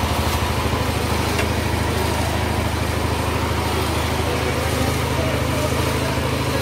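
A small engine running at a steady speed, with a fast, even throb.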